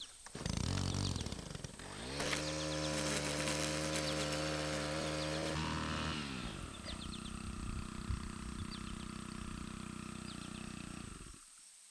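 Gas string trimmer's small engine running: it revs up about two seconds in, holds a steady high speed for about four seconds, drops to a lower speed, then cuts off suddenly near the end.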